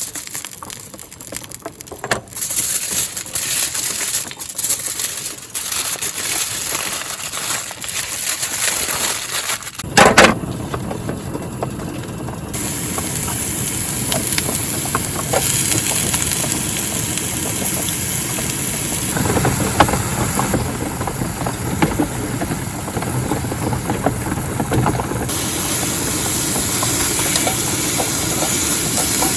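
Outdoor cooking under a tarp in the rain: scattered clicks and knocks of utensils, then a sharp knock about ten seconds in, after which a steady sizzling hiss full of small crackles runs on, as of steak frying in a pan.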